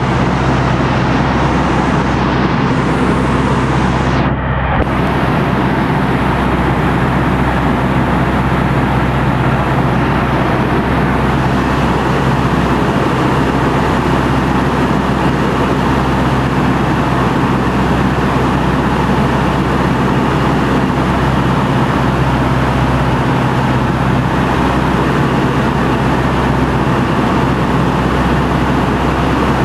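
Piper PA-18 Super Cub's piston engine and propeller running at a steady drone, heard from inside the cabin.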